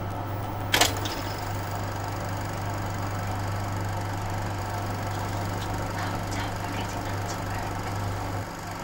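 Cine film projector running: a steady motor hum with a fast, even rattle of the film-advance mechanism, and one sharp clunk about a second in.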